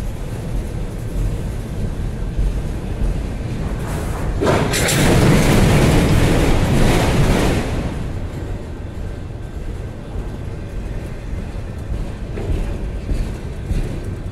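Empty autorack freight cars rolling past, a steady low rumble of wheels on rail. For about three seconds in the middle, a louder rush of noise swells over it and then fades.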